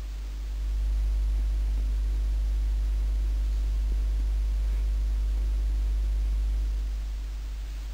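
Low steady electrical hum under a faint hiss, with no speech. The hum grows louder about a second in and drops back near the end.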